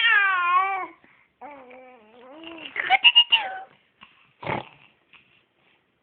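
Baby cooing and babbling: a string of drawn-out vocal sounds with wavering, sing-song pitch, followed by a brief noisy sound about four and a half seconds in.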